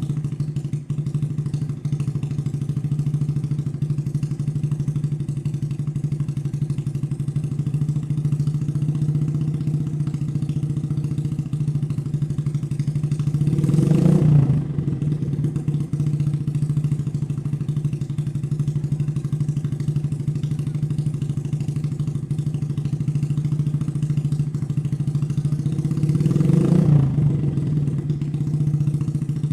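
Suzuki Shogun Axelo R motorcycle's single-cylinder four-stroke engine idling steadily through an aftermarket X1 Speed Racing silencer, blipped briefly twice, about halfway through and near the end, each time rising and falling back to idle.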